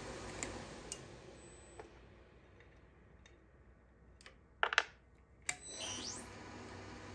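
Milling machine spindle running down to a stop, a few sharp clicks as the workpiece in the vise is handled, then the spindle motor starting up again with a quickly rising whine and settling into steady running.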